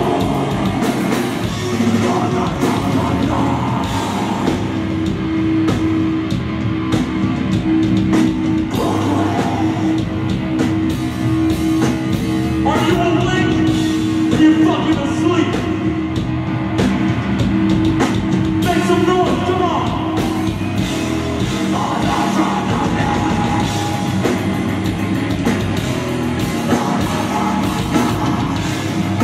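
Live heavy metal band playing: distorted electric guitars and drum kit, with a vocalist singing into a microphone, most clearly about halfway through.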